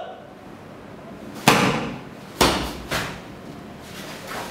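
Sharp snaps and thuds of a karate kata (Kanku Sho) being performed: the gi snapping and feet striking the foam mat with fast techniques. Three loud strokes come about a second and a half in, within about a second and a half of each other, each with a short room echo, and a fainter one near the end.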